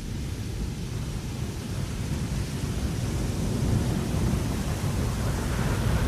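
Wind blowing across a ship's deck: a steady low rumble with a fainter hiss above it, swelling louder in a gust toward the end.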